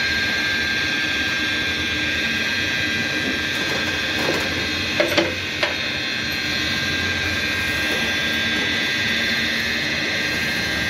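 A motor-driven workshop machine running steadily with a high whine and a low hum, with a few short metallic clicks about five seconds in.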